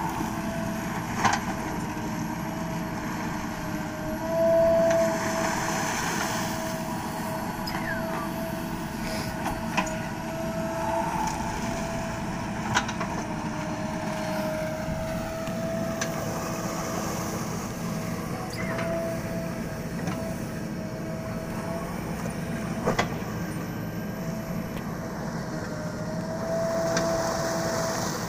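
JCB backhoe loader's engine running steadily under hydraulic load while digging and lifting river sand, with a steady whine over a low rumble. The engine swells louder about five seconds in and again near the end, and there are a few short sharp knocks.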